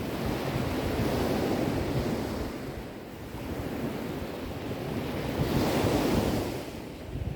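Sea waves breaking and washing on the shore, two swells rising and falling, the second and loudest about six seconds in.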